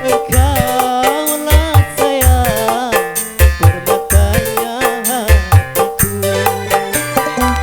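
Dangdut music played live on an orgen tunggal keyboard setup: a steady beat of low drum thumps under a lead melody that bends and wavers in pitch.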